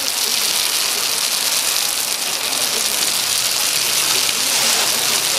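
Triangle dumplings frying in hot oil, a steady sizzle with no pauses.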